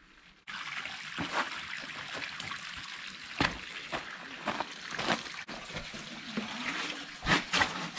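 Steady rush of spring water running through a rock canyon, starting suddenly about half a second in, with scattered scuffs and knocks of footsteps on rock and gravel.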